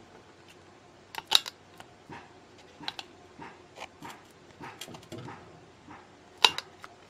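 Advent 10-inch subwoofer driver pressed in by hand, giving a series of small, sharp clicks at irregular intervals, the loudest about a second in and near the end. The clicking is the sign of a cracked spider (the cone's suspension).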